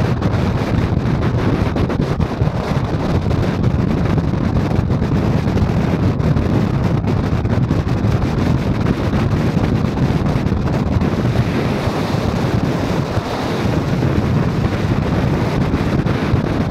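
Steady low rumble of a car driving along a paved road, made of tyre, engine and wind noise with no breaks.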